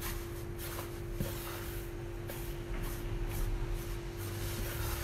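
Wooden spoon stirring and scraping a rough flour-and-water pizza dough in a large bowl, a run of irregular rubbing strokes. A steady low hum runs underneath.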